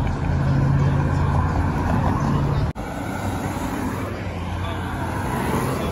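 Road traffic on a wide multi-lane street: cars and trucks passing with a steady engine and tyre hum, broken by a sudden brief dropout a little under halfway through.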